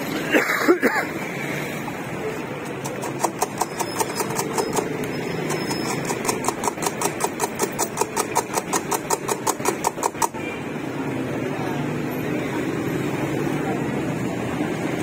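Wire whisk beating eggs in a steel bowl: a fast, even clinking of about five strikes a second that stops about ten seconds in. Steady street traffic noise with motorbike engines runs underneath.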